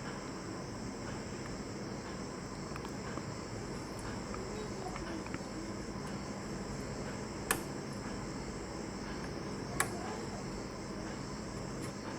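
Two sharp clicks about two seconds apart over a steady faint hiss: a desktop RAM module being pressed into its motherboard slot, the slot's retention clips snapping shut as it seats.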